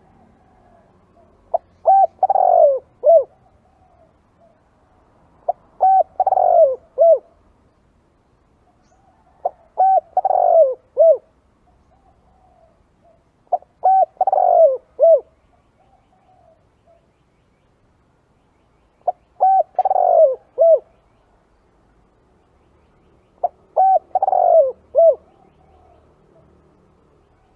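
Spotted dove cooing: six repeated call phrases, each a short opening note, a longer falling coo and two quick closing notes, about every four seconds with one longer pause midway.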